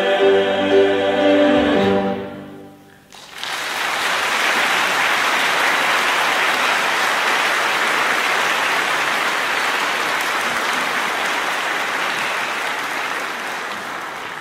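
A male choir holds a final sustained chord that fades away two to three seconds in. After a brief hush, the audience breaks into steady applause that slowly tapers off.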